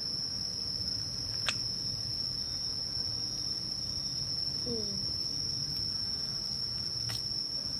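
Crickets chirping in one steady high-pitched drone, with two sharp clicks, about a second and a half in and near the end.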